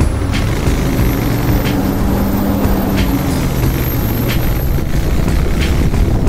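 Motorcycle running along the road at a steady pace, a continuous engine drone.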